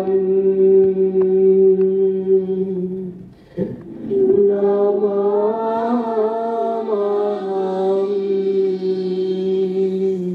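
Voices chanting in unison on long drawn-out held notes, with a short pause for breath about three seconds in, then a second long held line that fades out at the end.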